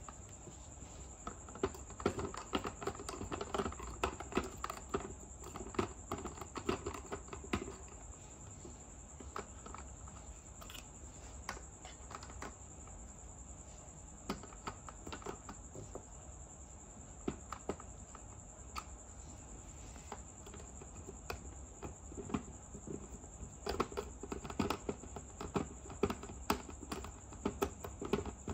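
Small plastic toy kitchen pieces clicking and tapping as they are handled: a toy frying pan, pot, spatula and plastic food knocked and set down against the plastic cart. The clicks come in quick flurries about 2 to 8 seconds in and again near the end, sparser between, over a faint steady high whine.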